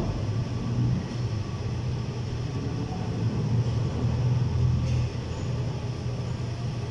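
Steady low mechanical rumble, like an engine running.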